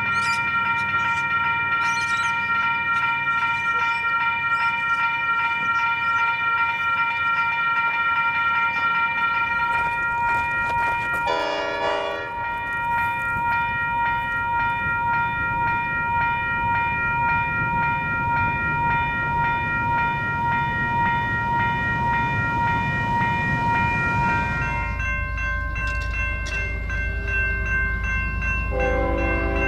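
Electronic railway level crossing bells ringing, a repeated electronic ding made of several steady tones. First come Western Cullen Hayes e-bells; the tone changes abruptly a little over a third of the way in, and again near the end, to a US&S e-bell with lower tones.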